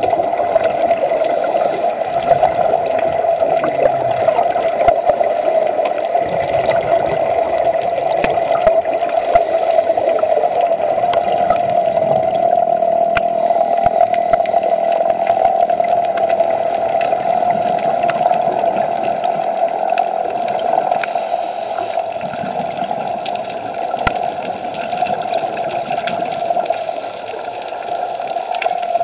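Underwater recording: a steady droning hum at one pitch over a gurgling water hiss, with scattered faint clicks.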